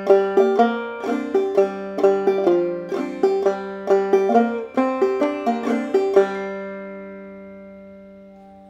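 Banjo played clawhammer style: a brisk run of plucked melody notes mixed with brush-thumb strums, then a last note left to ring and slowly fade over the final couple of seconds.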